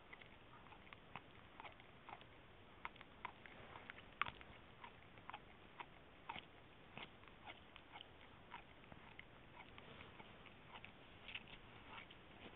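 A dachshund chewing and gnawing, giving soft irregular crunching clicks about two or three a second, with one louder crunch about four seconds in.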